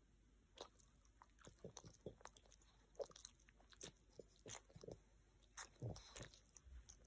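A dog's mouth making faint, irregular wet smacks and clicks, licking and working its tongue and lips.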